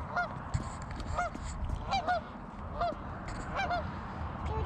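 Two geese honking, a string of short calls repeated roughly every half second to a second.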